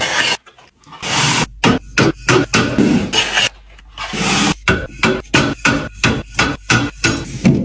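Groceries and containers being set down and slid into place in a fridge: a quick run of sharp knocks and taps with two longer scraping rubs, one about a second in and one midway.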